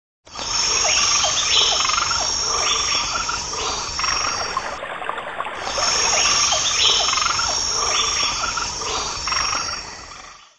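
Night chorus of frogs and insects: a steady high insect trill with repeated frog calls beneath it. It fades in at the start and fades out near the end.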